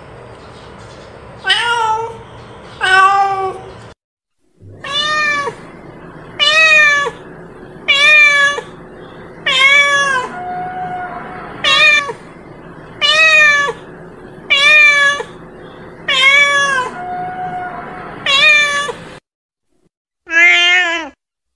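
Domestic cat meowing over and over, a short meow that rises then falls in pitch about every one and a half seconds. After a short silence near the end comes one more meow, lower in pitch.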